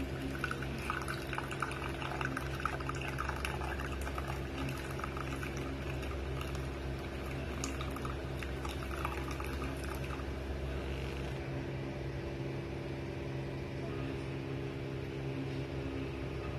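Herbal decoction (kasayam) poured in a thin stream into a ceramic cup, a splashing trickle as the cup fills, which stops about ten seconds in.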